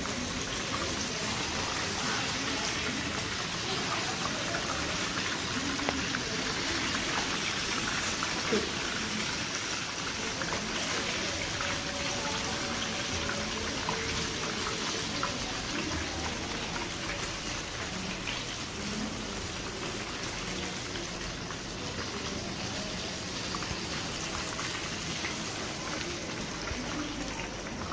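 Hot oil sizzling steadily with a dense fine crackle, as in frying.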